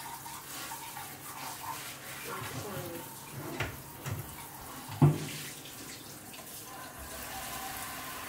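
Kitchen faucet spray running onto a whole raw chicken being rinsed in a stainless steel sink. A couple of short knocks come through it, the louder one about five seconds in.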